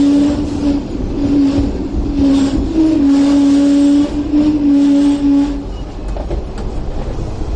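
Hong Kong double-decker tram running along its track, heard from inside the front of the car. A steady low hum cuts in and out several times, then drops away after about five and a half seconds, leaving a quieter running rumble.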